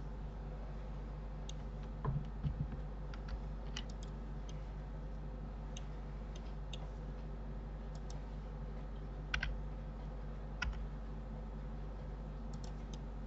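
Sparse, irregular computer keyboard and mouse clicks over a steady low hum.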